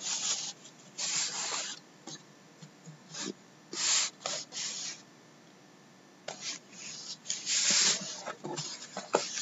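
Sealed cardboard case being turned and handled, with the cardboard and hands rubbing and scraping in a series of short bursts and a brief pause about halfway through.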